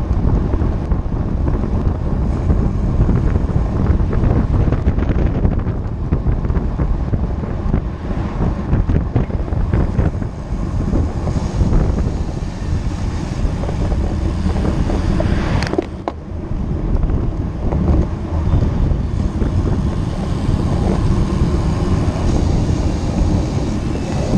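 Wind buffeting the microphone of a camera carried on a moving road bike: a loud, steady low noise. There is a single sharp click about 16 seconds in.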